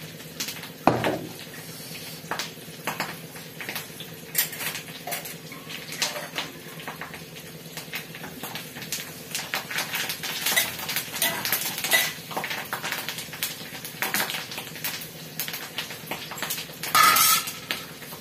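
Steel ladle clinking and scraping against a steel frying pan while stirring a tempering on a gas burner, with a faint sizzle of frying. Short metallic clicks come throughout, and the loudest clatter, with a brief ringing note, comes near the end.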